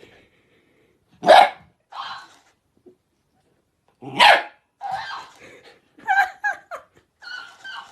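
A dog barking: two loud single barks about three seconds apart, followed by a run of shorter, quieter sounds.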